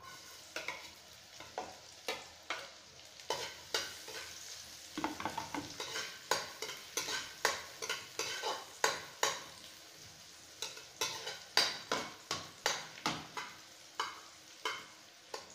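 Minced garlic sizzling in hot cooking oil in a wok, being sautéed, while a metal slotted spoon stirs it, scraping and knocking against the pan many times.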